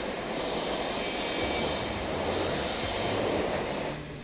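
Handheld gas blowtorch burning with a steady hiss while it heats the ends of hot glue sticks; the sound drops away about four seconds in.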